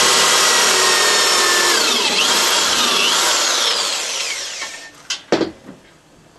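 Corded electric drill boring a screw hole in a plywood sled. The motor whine dips and rises in pitch as it works through, then winds down about four and a half seconds in, followed by a few sharp knocks.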